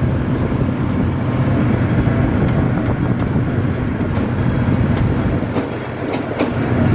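ATV engine running steadily under way, with scattered knocks and rattles from the ride; the engine note dips briefly about six seconds in.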